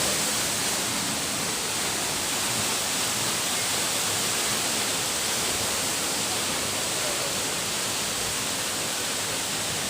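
Steady rushing of a waterfall: an even hiss with no rhythm or pitch.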